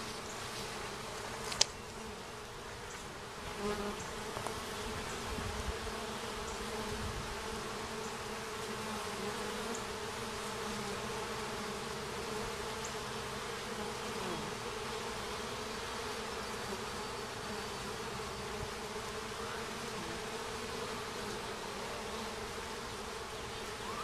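Many honeybees buzzing in a steady hum as they fly in and out of a hive entrance. A single sharp click comes about a second and a half in.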